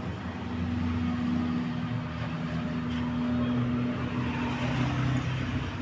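A steady, low engine-like drone with a few held tones whose pitch shifts slightly about four seconds in.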